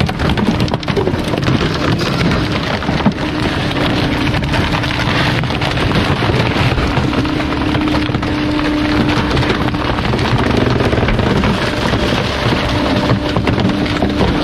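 Bulk waste truck compacting a load: continuous crackling and crunching, like wood splintering, over a steady whine that drops out and comes back a few times.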